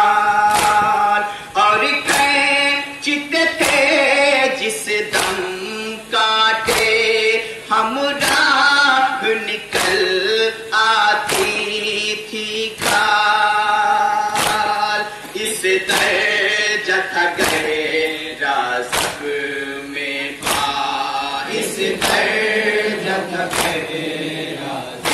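Men's voices chanting a Muharram nauha (Urdu mourning lament) together in a slow refrain. Sharp hand strikes on the chest (matam) keep a steady beat about one and a half times a second.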